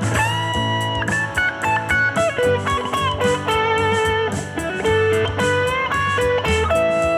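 Stratocaster-style electric guitar playing a blues-rock lead in A major pentatonic over a looped rhythm guitar backing. It opens with a bent note held about a second, then quick runs of single notes with vibrato. The phrases are aimed at landing on E, the fifth of the A chord.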